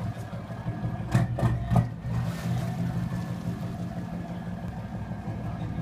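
Dive boat's inboard engines running at low speed as it pulls away from the dock, a steady low hum. Three quick thumps a little over a second in.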